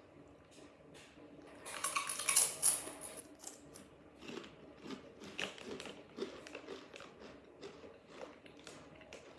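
Potato chips crunching and crackling, with a burst of louder crackling about two seconds in, then scattered softer crunches.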